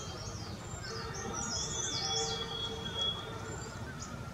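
Small birds chirping and twittering in quick, high-pitched notes that run on throughout, with a fainter thin, steady whistled note in the middle.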